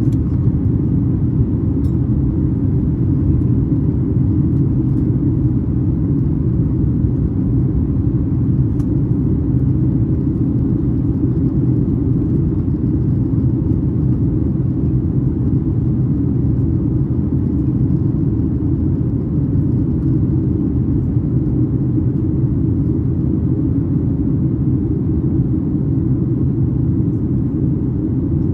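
Steady low rumble of engine and airflow noise inside the passenger cabin of a Boeing 737 MAX 8-200 in flight.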